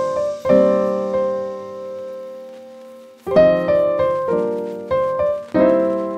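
Background music: keyboard chords, each struck and left to ring out and fade, with one long fading chord before the next group of chords about three seconds in.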